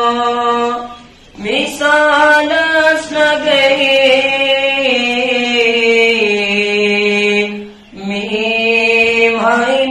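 A Kashmiri naat sung by one unaccompanied voice in long, slowly bending held notes, with two short breaths, about a second in and near the end.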